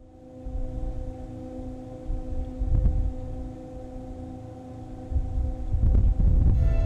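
Steady machinery hum of a jack-up vessel, a few even tones held throughout, with irregular low rumbling under it that swells about three seconds in and again in the last couple of seconds.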